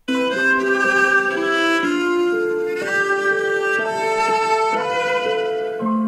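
Music track playing back: a melody of held notes over sustained chords, starting abruptly.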